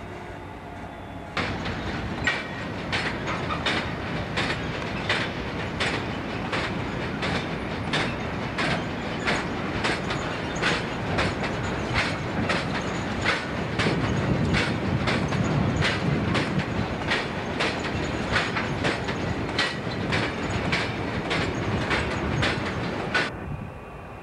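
A Class 66 diesel-electric locomotive running light at low speed, its engine rumbling under a rhythmic clicking of steel wheels on the track about twice a second. The engine is loudest midway through.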